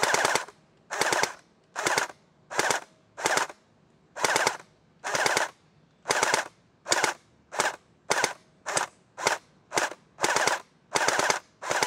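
Splat-R-Ball electric gel blaster, with a metal-geared gearbox and an M90 spring, firing again and again: about seventeen short bursts, each well under half a second, with quick pauses between them.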